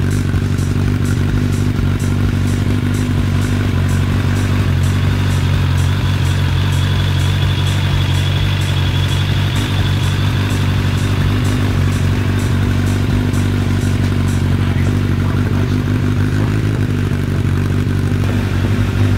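Suzuki Bandit GSF 650S's inline-four engine idling steadily through an aftermarket MIVV GP carbon slip-on muffler.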